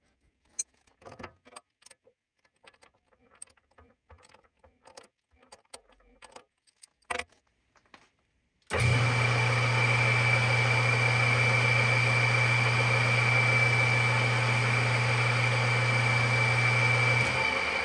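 Light metal clicks and knocks as the spider-chuck assembly is fitted into the metal lathe's chuck. About nine seconds in, the lathe starts abruptly and runs steadily with a low hum and a high steady whine. Near the end the hum drops out and the running sound begins to fade as the spindle winds down.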